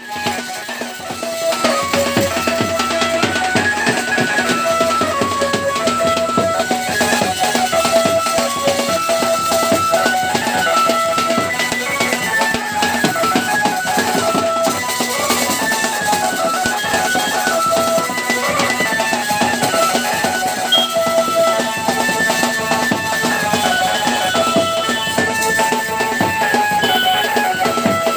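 Loud Indian wedding-procession dance music: fast drums under a stepping melody line, played without a pause.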